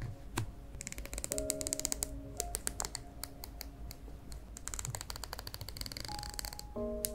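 Small steel scissors trimming a piece of translucent PET tape or sticker film: runs of quick little snips and clicks, one about a second in and another from about the middle to near the end. Soft background music with held notes plays underneath.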